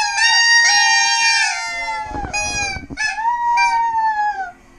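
New Year's Eve party horns blown in several long, loud toots, a few overlapping at first. Each toot holds one steady pitch and sags a little as it dies. They stop shortly before the end.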